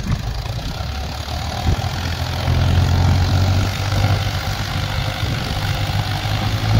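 Mahindra 265 DI tractor's three-cylinder diesel engine running under load, pulling a trailer heaped with soil over loose ground. The engine note grows louder about two and a half seconds in.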